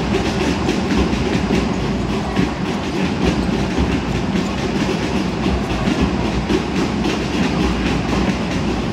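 Steady, loud din of a basketball arena during play: a dense, even rumble with a faint, fast, even ticking over it.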